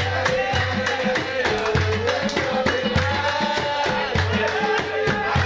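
Egyptian simsimiyya band music: a gliding melody line over hand drum and percussion keeping a steady beat.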